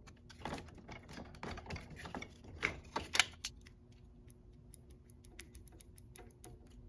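Hard plastic clicks and knocks from a screwdriver prying at the plastic switch housing on a cordless mower's handle and from the housing being handled. A quick run of sharp clicks comes first, then lighter, sparser ticks.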